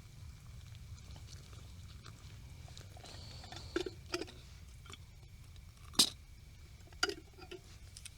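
A few soft clicks and taps from cooking utensils and gear being handled at a small camp stove, the sharpest about six seconds in, over a low steady rumble.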